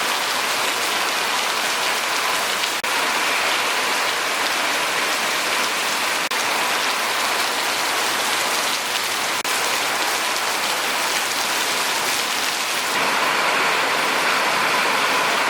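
Heavy tropical monsoon rain pouring down in a steady hiss. It breaks off for an instant three times and grows a little louder near the end.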